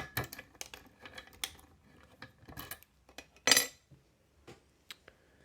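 Metal lock picks and a tension wrench clicking and scraping against a five-pin pin-tumbler lock as picking begins, with a louder metallic clatter about three and a half seconds in.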